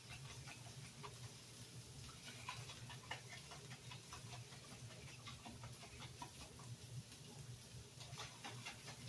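Faint irregular clicks and light sloshing from a jar of oil-and-vinegar Italian dressing being shaken by hand, over a low steady hum.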